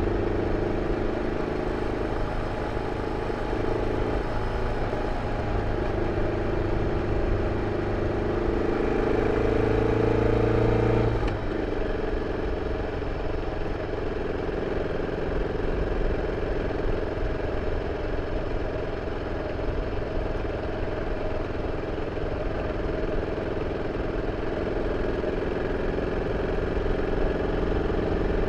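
BMW F 650 CS single-cylinder engine running with its original exhaust. Its note climbs gradually for the first ten seconds or so, drops suddenly about eleven seconds in, then holds fairly steady.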